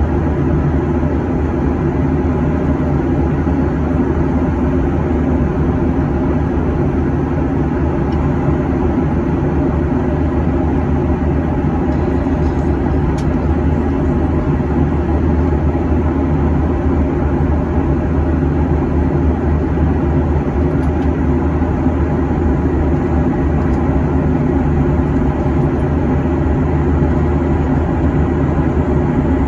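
Steady low drone inside the cabin of a Boeing 737-800 in flight: the CFM56-7B turbofans and the airflow over the fuselage heard through the cabin walls.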